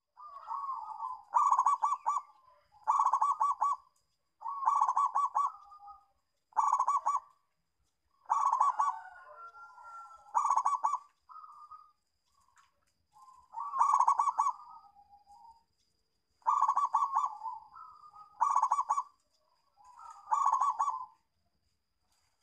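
Zebra dove (perkutut) cooing: about eleven rapid, trilled coo phrases, each about a second long, coming every two seconds or so.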